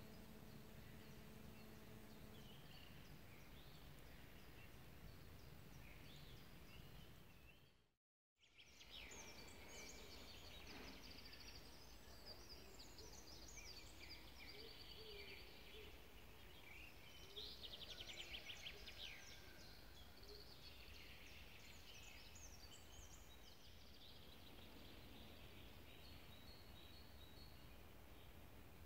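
Faint birdsong from several small birds, a mix of short chirps and quick trills, over a low steady background hiss. The sound drops out completely for a moment about eight seconds in, and the birds are busiest a little past the middle.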